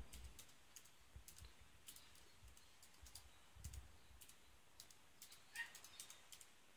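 Faint, unevenly spaced key clicks, several a second, from typing on a Zoom Gridlock folding Bluetooth keyboard.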